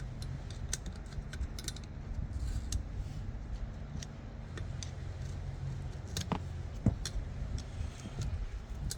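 Small metallic clicks and scrapes of a screwdriver working a retainer clip out of an upside-down motorcycle fork's outer tube. The clicks are scattered, with a few sharper ones in the second half, over a steady low hum.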